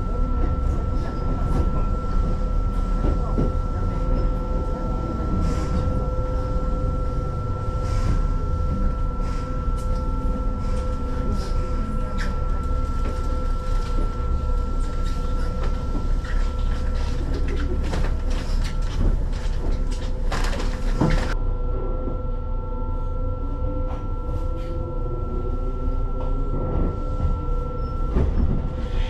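Electric commuter train standing at a station platform with its doors open: a steady hum from the car's equipment over a low rumble, with scattered clicks and knocks. About three-quarters of the way through, a rising motor whine joins in.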